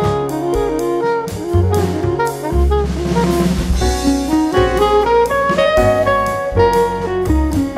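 Background jazz music: a horn melody over a moving bass line and drum kit with cymbals.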